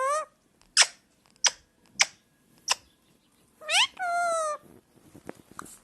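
Parrot calling and mimicking a cat: several short, sharp high chirps, then a rising call that runs into one held, pitched meow a little past the middle.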